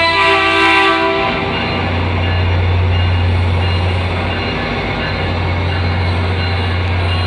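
Train horn sounding one short chord blast of about a second and a half, over a train's steady low engine drone.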